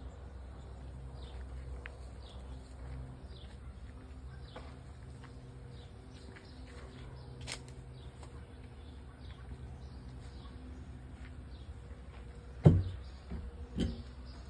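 Small birds chirping again and again, short falling notes, over a steady low hum. Near the end comes a loud thump with a brief ring, then a second, smaller knock about a second later.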